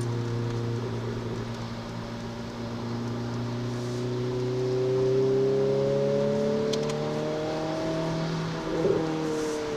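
Renault Clio RS 200's 2.0-litre four-cylinder engine heard from inside the cabin, pulling through a gear with its pitch climbing slowly for several seconds, then easing off near the end.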